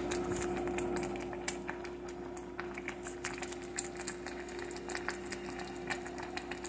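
Pot of crab and vegetable soup simmering on a gas stove, with irregular small pops and crackles of bubbling over a steady low hum.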